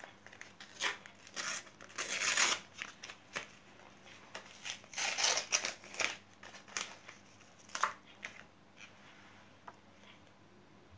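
Topps sticker packet torn open by hand, its wrapper crinkling and rustling in a series of short bursts, loudest about two seconds in and again around five seconds, then fainter handling of the stickers.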